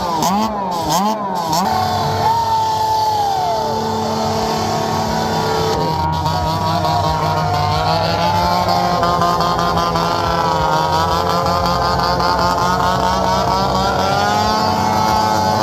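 Several motocross bikes' engines running together at several overlapping pitches. In the first second or so one is blipped up and down about twice a second, and near the end the engines rev up.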